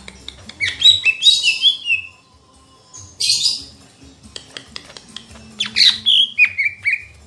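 Cica ijo songbird singing: two loud phrases of quick notes that step down from high to middle pitch, with a short harsh, buzzy burst between them about three seconds in.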